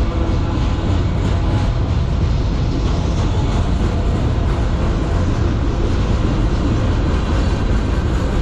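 Freight train cars, autoracks and boxcars, rolling past close by: a loud, steady rumble of steel wheels on the rails.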